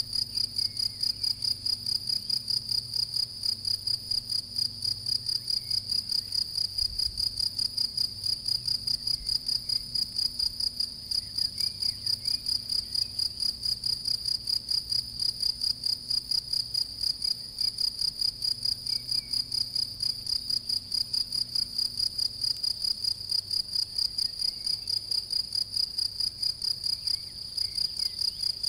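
European field cricket (Gryllus campestris) singing: a loud, high, even chirping repeated several times a second without let-up, with a brief break near the end.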